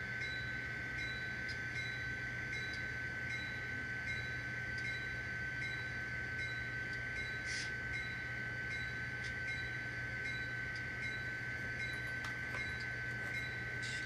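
Model train locomotives running slowly along the layout's track: a steady high whine over a low hum, with faint, evenly spaced clicks about two a second.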